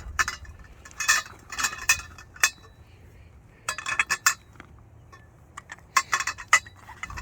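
Powder-coated steel tubes of a portable pickleball net frame clinking and knocking against each other as they are handled, in several short clusters of sharp metallic clinks.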